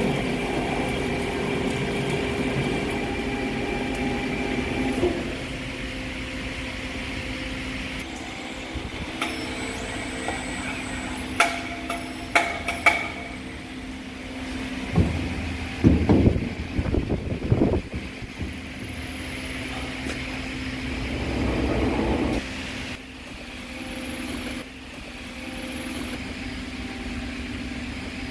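A metal lathe running steadily in a workshop. A few sharp metal clinks come a little before halfway, and several heavy knocks follow just after.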